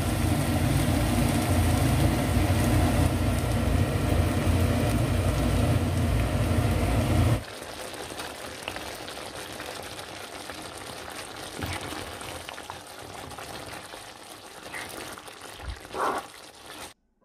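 Coconut milk poured into a hot pan of curry-paste-fried vegetables, sizzling loudly with a steady low rumble underneath. About seven seconds in it drops to the much quieter bubbling of the red curry simmering, with a utensil stirring and scraping in the pan near the end.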